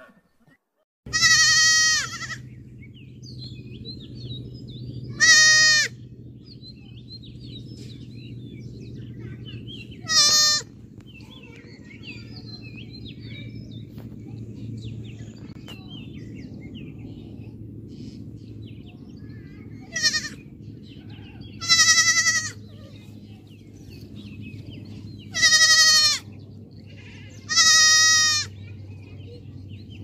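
Goat kids bleating: seven short, high-pitched bleats spread through, two of them close together near the middle and more near the end, over a steady low background hum.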